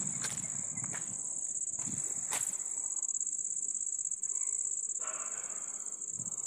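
Crickets trilling: one steady, high, rapidly pulsing trill, with a few faint clicks over it.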